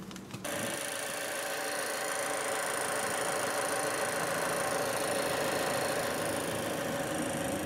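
2014 Mazda 3 switched on, heard from inside the cabin: a steady whirring hum that starts abruptly about half a second in and holds.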